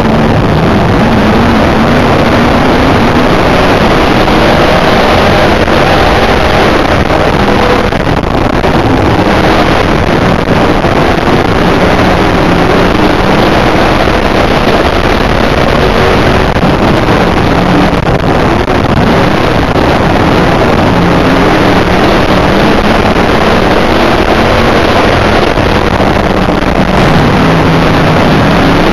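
IMCA dirt modified's V8 engine heard from inside the car, very loud and steady, with the revs rising and falling as the throttle is worked on the track.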